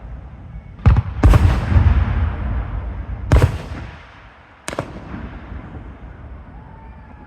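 Fireworks show: four sharp aerial shell bursts in quick succession, the second followed by a long rumbling tail lasting over a second.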